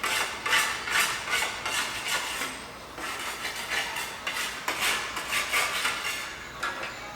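Irregular clatter and knocks of hard objects, a few each second, easing off near the end.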